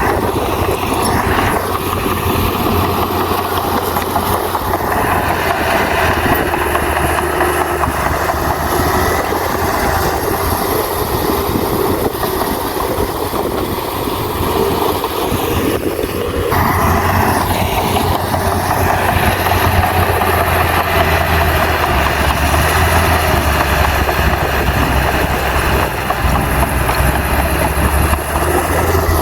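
Heavy diesel earthmoving machinery running steadily under load. About halfway through, its sound gets louder and brighter.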